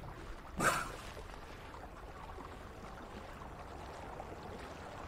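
Faint, steady background noise of open air and water, with one short whoosh about a second in.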